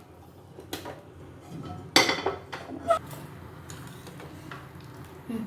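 Metal spoon clinking against a steel cooking pot: a few separate clinks, the loudest clatter about two seconds in and a short ringing clink just after.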